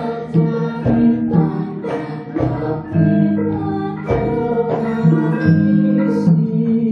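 Javanese gamelan playing: bronze gong-chimes and metallophones struck in a quick run of ringing notes, with kendang hand-drum strokes and a female singer's voice over them.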